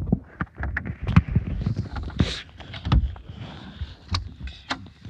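Irregular knocks, low thumps and rustling from someone moving and handling things close to the microphone.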